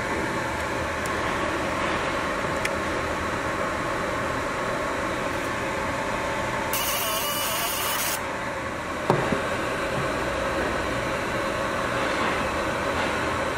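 Steady hum of workshop machinery. About seven seconds in, a high hiss starts and stops abruptly after about a second and a half, and a single knock follows about nine seconds in.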